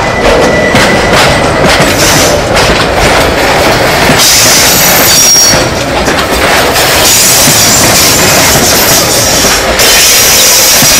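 Freight train wagons rolling past close by, wheels clattering over the rails. A high wheel squeal sets in about four seconds in.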